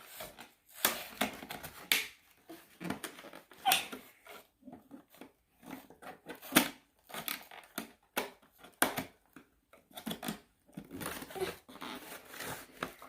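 Scissors snipping and the cardboard and plastic packaging of a toy microwave rustling and tearing as it is cut open, in irregular short snips and crackles.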